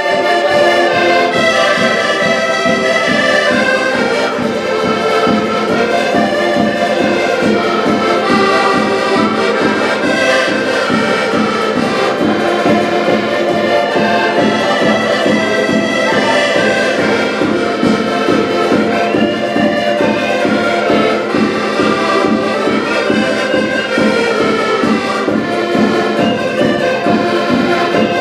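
An ensemble of accordions playing a Portuguese folk tune together in chords and unison melody, over a steady regular beat.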